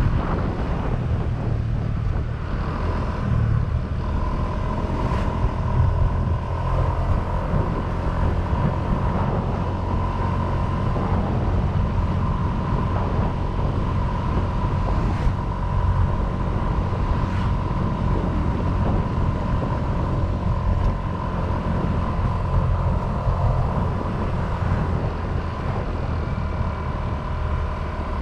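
Honda Vario 125 scooter's single-cylinder engine running through its stock exhaust while riding, a steady low drone with a thin steady whine above it for most of the stretch.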